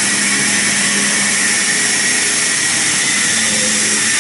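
CNC lathe running steadily: a loud, even hiss with a steady low hum and a faint high whine underneath.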